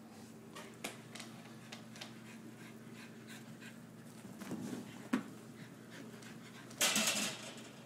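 Small dog panting and snuffling while it plays, with faint scattered ticks, a sharp tap about five seconds in and a louder noisy burst near the end.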